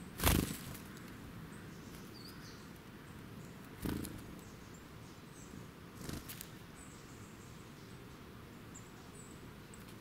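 Small songbirds' wings fluttering in three short whooshes as they fly to and from a pile of seed on the ground: the loudest right at the start, the others about four and six seconds in. Faint high chirps of birds are heard between them.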